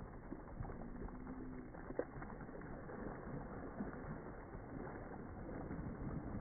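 Water from garden hoses spraying and splashing onto a wet plastic slip-and-slide tarp, a steady rushing patter with one sharp click about two seconds in.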